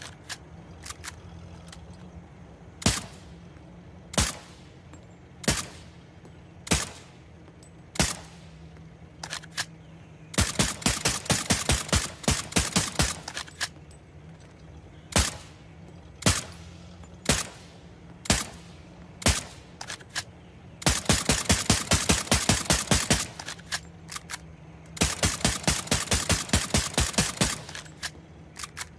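Suppressed Walther P99 pistol firing: single shots spaced about a second apart, alternating with three rapid strings of shots of several a second.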